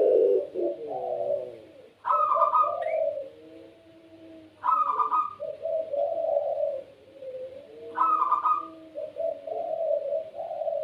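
Puter pelung doves (a cooing variety of Barbary dove) cooing over and over in low, drawn-out phrases, with a shorter, higher-pitched call breaking in about every three seconds.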